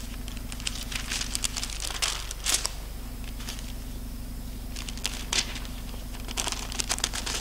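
Thin Bible pages being leafed through and turned by hand: papery crinkling rustles that come in two runs, early on and again in the second half, over a low steady hum.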